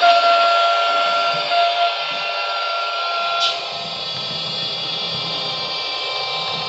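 Sound decoder in a model ALe 642 electric railcar playing simulated railcar sounds through its small speaker: a steady high electric whine, with a louder held tone over it for the first three seconds or so, a brief rising squeak about three and a half seconds in, then a low rumble under the whine.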